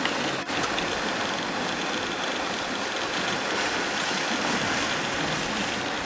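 Steady rush of river water, with wildebeest splashing through the current as they cross.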